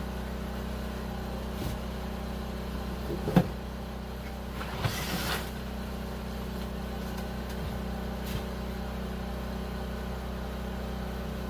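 An engine running steadily at idle with a low drone. A single sharp knock comes about three seconds in, followed by a short scraping clatter about a second later.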